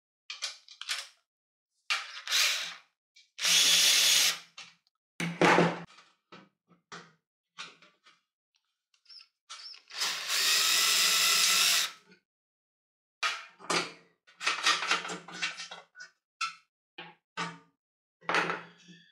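Small cordless drill-driver running in two spells, about a second and then about two seconds, backing out the screws that hold a telescope focuser to the steel tube. Short clicks and knocks from the screws and parts being handled come between the spells.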